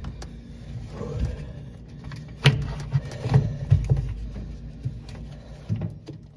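Handling noise from hands working at a washing machine's drain pump and its plastic wiring connector: a string of short plastic clicks and knocks, the sharpest about two and a half seconds in, over a low rumble.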